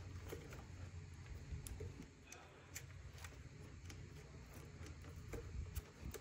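Faint, scattered clicks and rustles of hands stuffing wires and plug connectors into an e-bike's plastic controller housing and pressing the aluminium controller back into place, over a low steady rumble.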